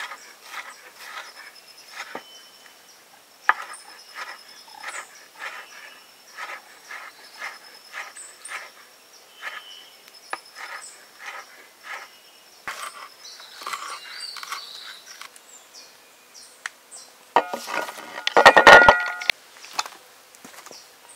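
Kitchen knife chopping vegetables on a wooden cutting board, short strikes about two a second, with insects chirping steadily in the background. Near the end comes a brief, louder clatter.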